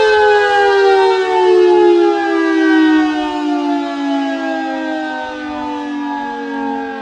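Federal Signal 2T22 dual-tone outdoor warning siren winding down after a short test alert, its loud chord falling steadily in pitch and easing off a little after about three seconds.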